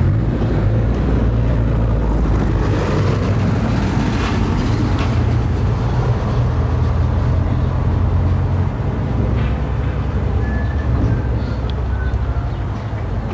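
An engine running steadily: a loud low drone with a hiss over it.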